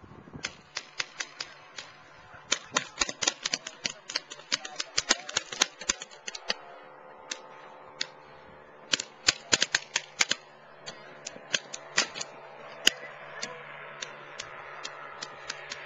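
Paintball markers firing in rapid strings of sharp pops, several shots a second, with short pauses between volleys.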